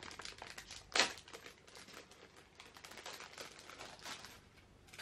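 Packaging being opened by hand: irregular crinkling and rustling with small clicks, and a sharper crackle about a second in.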